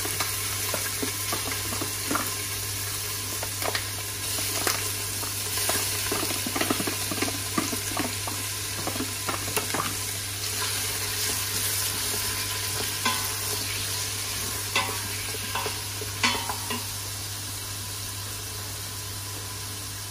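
Diced smoked bacon lardons sizzling in hot oil in an Instant Pot's stainless steel inner pot on the sauté setting, browning. A wooden spoon stirring them clicks and scrapes against the pot, and the stirring stops near the end while the sizzling goes on.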